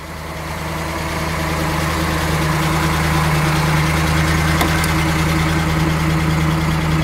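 The 1969 Camaro Z/28's 302 V8 idling with a steady, even rumble, fading in over the first couple of seconds. A light click about halfway through as the driver's door is unlatched.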